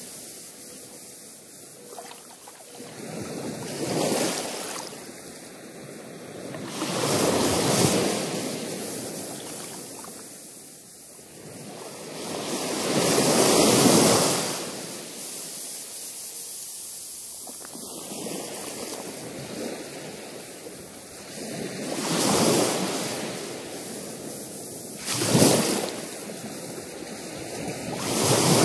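Ocean surf breaking on rocks and sea stacks, the noise swelling and fading every few seconds.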